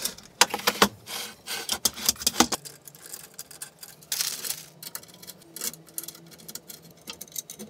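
Small metal screws and T-nuts clicking and clattering as they are picked out and handled, fast and dense at first, then scattered. A short rustle of a plastic parts bag comes about four seconds in.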